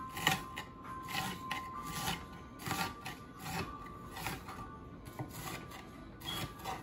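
Kitchen knife chopping and scraping diced onion on a wooden cutting board: an uneven string of soft strikes and rubs, about two a second.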